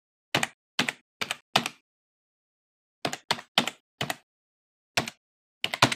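Keyboard keystrokes typing in uneven runs: four quick clicks, a pause, four more, a single one, then three together near the end.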